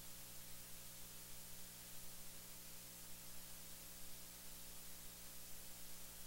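Steady hiss with a low electrical hum underneath: only the background noise of the recording, no other sound.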